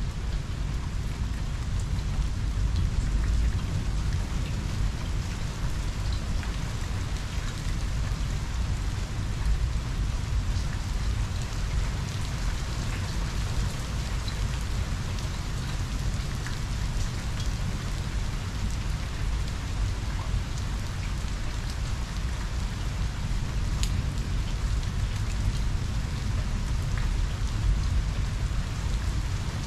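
Steady heavy rain pattering on the ground and nearby surfaces, with fine drop ticks and a low continuous rumble underneath, from a thunderstorm.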